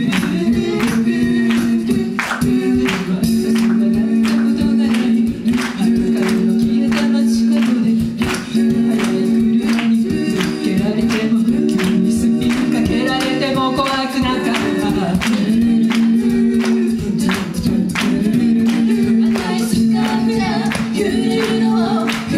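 A mixed-voice a cappella group of five singing live: held backing chords and a lead melody over a steady beat of vocal percussion.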